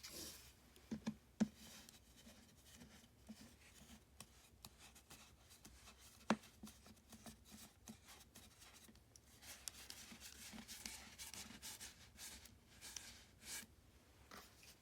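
Faint scraping and clicking of plastic tubes being turned by hand on their threads in a shelf board, with a few sharper knocks of plastic parts being handled, the loudest about six seconds in.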